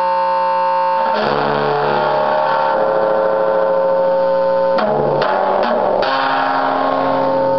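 Homemade cigar box bass played through an amplifier: plucked notes that ring on and sustain, with new notes struck about a second in and a quick series of plucks between about five and six seconds. The player says it is not in tune.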